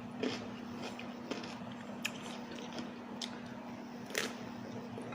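A person chewing crunchy baby cucumbers dipped in sauce, with scattered short crunches and wet mouth clicks about once a second over a faint steady hum.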